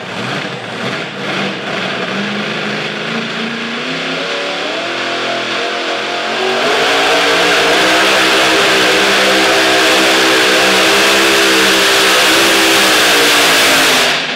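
Supercharged engine of a pulling tractor winding up under load, its pitch climbing over the first several seconds. It then holds a loud, steady full-throttle run with the front wheels lifting, and stops abruptly near the end.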